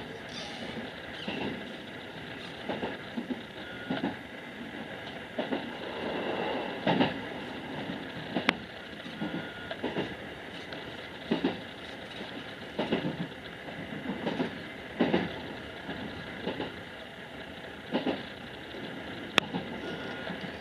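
JR West 221 series electric train running along the line, heard from inside the car: a steady running rumble with knocks every second or two, often in close pairs, as the wheels pass over rail joints. There are two sharp clicks, one in the middle and one near the end.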